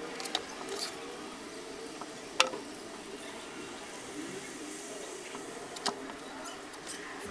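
Light handling noise in a workshop: four sharp clicks, the loudest about two and a half seconds in, over a steady faint hiss.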